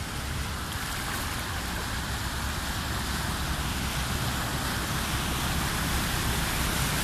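Floodwater rushing across a road while a car drives through it, its wheels churning and splashing the water. The wash and rumble grow gradually louder as the car comes close.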